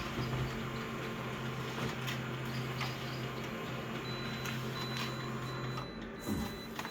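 Photocopier running through a copy cycle: a steady mechanical hum with a few light clicks, which stops about six seconds in. A string of short high beeps sounds over the last few seconds.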